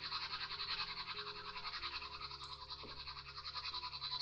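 A steady, rapid pulsing hiss, many pulses a second, with soft held music notes underneath.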